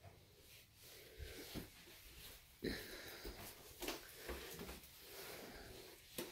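Faint footsteps on a softwood floor and handling rustle in a small quiet room, with a few soft knocks about two and a half, four and six seconds in.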